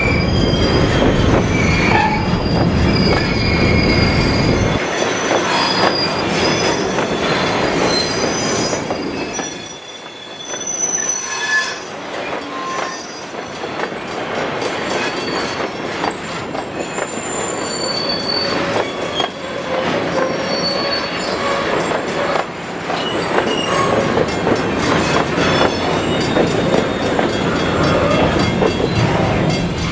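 Freight train of covered hopper cars rolling slowly past, steel wheels squealing and screeching against the rails over the rumble of the trucks. The low rumble is heaviest for the first five seconds, dips about ten seconds in, then builds again.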